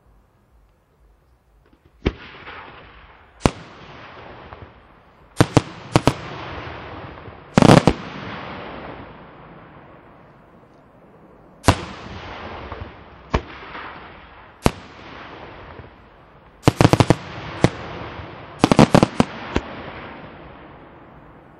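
Senatore Fireworks aerial shells bursting overhead, starting about two seconds in: a string of sharp bangs, some single and some in quick clusters of several, each one echoing away.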